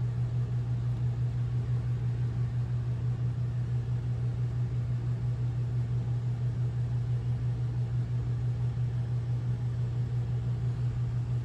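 Air circulation fan running with a steady, even hum.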